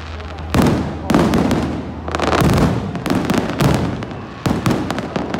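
Aerial fireworks bursting overhead in a quick run of about seven booms over five seconds, with crackling between them.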